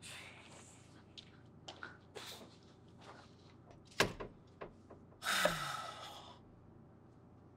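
A door shutting with a sharp click, then about a second later a long breath out, a sigh.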